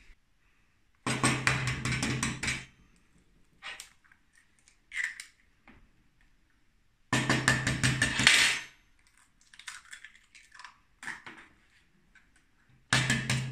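Eggs being cracked by hand into a small bowl: three bursts of rapid clattering taps, each about a second and a half long, about one per egg, with a few single taps and cracks in between.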